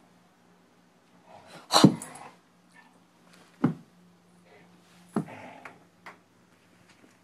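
A dog at play with a tennis ball on a carpeted floor: four short sharp thumps a second or two apart, the first and loudest about two seconds in.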